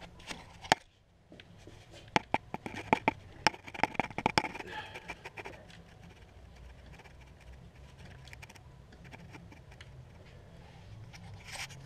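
Handling sounds under the hood: one sharp click, then a quick run of sharp clicks and taps with some scraping for a few seconds, as hands work parts and fittings in the engine bay. After that only a faint low hum.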